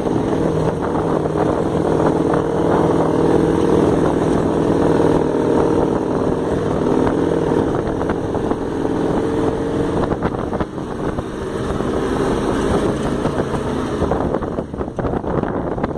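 Dune buggy engine running at a steady pitch under way, heard from inside the open cab. After about ten seconds the engine tone fades into rushing wind noise, with short dips in level.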